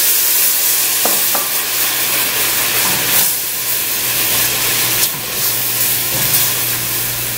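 Water sizzling and steaming in a hot metal pot of sautéed onions and celery as the pan is deglazed: a steady loud hiss. A silicone spatula stirs and scrapes through the vegetables.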